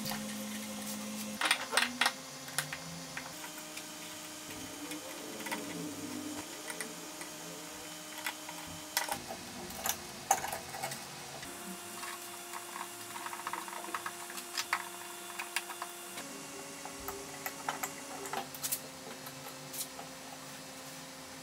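Scattered light clicks and taps over soft background music of long held notes that change every few seconds.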